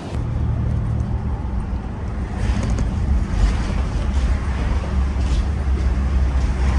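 Car cabin noise while driving: a steady low engine and road rumble heard from inside the vehicle.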